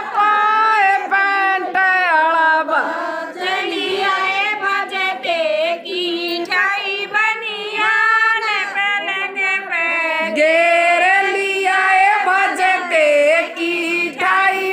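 A group of women singing a Haryanvi folk song (geet) together, one melodic line carried by several voices without a break.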